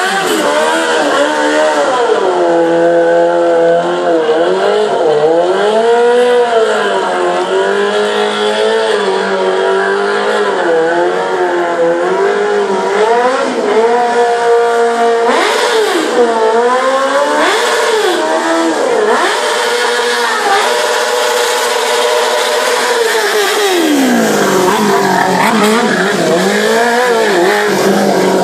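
Stunt sport motorcycle engine revving up and down again and again, its pitch rising and falling through the tricks.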